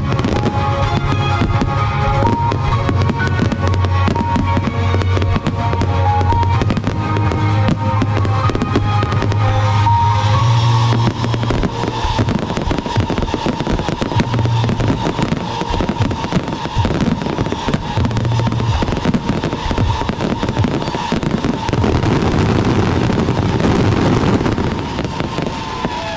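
Fireworks going off in a continuous barrage of bangs and crackles, over music with a heavy bass line. The music's bass drops away about eleven seconds in, and a dense crackling builds toward the end.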